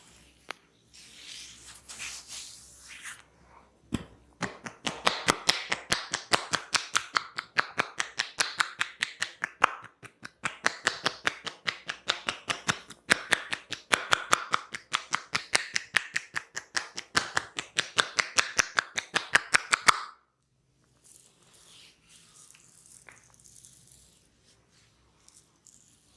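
Hands tapping rapidly on a person's head in a head massage, about four or five sharp slaps a second, starting about four seconds in and stopping abruptly near twenty seconds. Softer rubbing and rustling of hair comes before and after.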